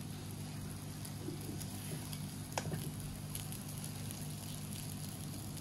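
Faint sizzling of sweet vermicelli in a hot non-stick frying pan while a spatula stirs and scoops it out, with one sharp tap about two and a half seconds in.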